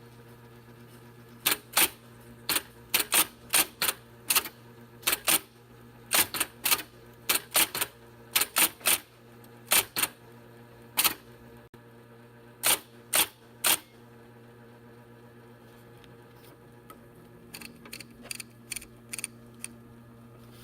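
IBM Selectric II electric typewriter typing. Its motor hums steadily under sharp keystrikes that come in uneven runs, followed by a stretch of fainter, lighter clicks near the end.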